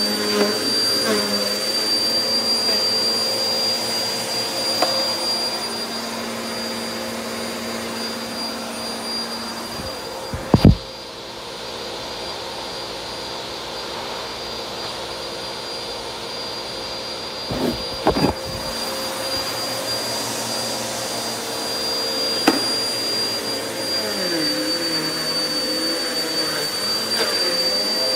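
Upright vacuum cleaner running over an entrance mat, with a steady high-pitched whine over the motor. Sharp knocks about ten seconds in and again around eighteen seconds, with the sound quieter and duller between them.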